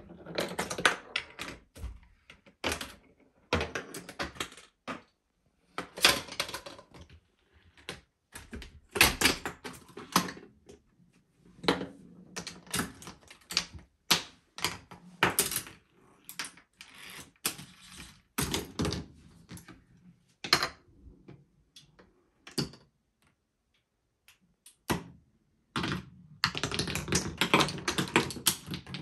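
Chain reaction machine of wooden tracks, K'nex parts and balls running, with balls rolling and dropping and pieces knocking, in short bursts of clacks and rattles every second or two. After a pause of a few seconds, a dense run of clattering comes near the end.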